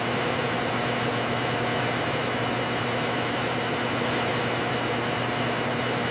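Steady mechanical hum with hiss, the constant background drone of factory machinery.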